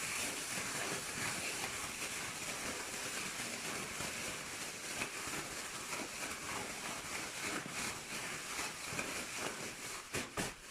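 Plastic bag rustling and crinkling steadily as sliced raw potatoes are shaken and kneaded inside it, with a few sharp crinkles near the end.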